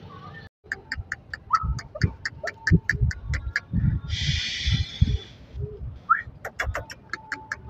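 A puppy's low grunts and two short rising squeaks over a fast, even clicking of about five clicks a second, with a burst of hiss in the middle.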